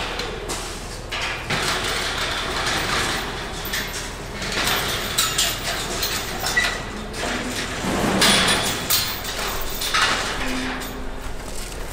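Steel pipe gates and pen panels clanking and rattling as bison are moved through a sale-barn alley, an irregular run of metallic knocks and clatter.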